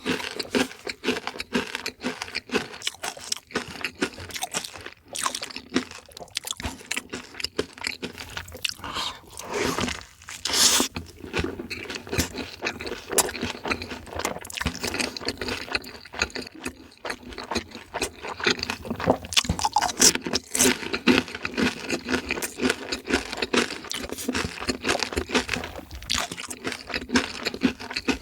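Close-miked crunching and chewing of crispy fried chicken: crackling bites and wet chewing that go on irregularly, with no pauses.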